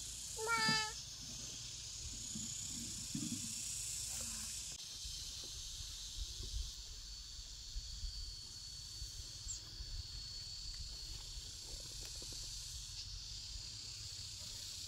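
Steady chorus of insects in the field: a high hiss with a thin, steady whine running through it. About half a second in, a short high-pitched call, a voice or animal cry, is the loudest sound.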